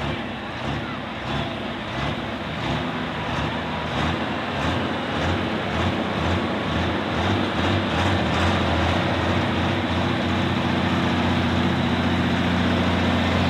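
John Deere light super stock pulling tractor's engine revved in quick repeated blips, roughly one and a half a second, as it waits at the starting line before the pull. About eight seconds in the blips give way to a steady, higher, louder run that keeps building near the end.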